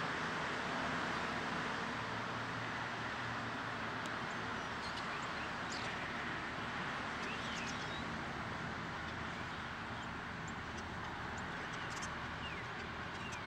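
Steady hiss of street traffic, with a few short, faint bird chirps scattered through it.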